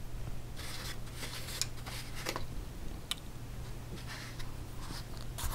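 Fountain pens being picked up off a cloth-covered table: soft rustling with a few light clicks of pen barrels, over a faint steady hum.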